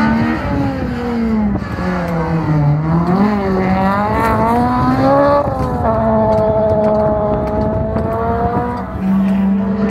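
Rallycross hatchback's engine revving hard, its note falling and rising with the throttle, then dropping sharply about six seconds in at an upshift and holding a steady pitch for a few seconds.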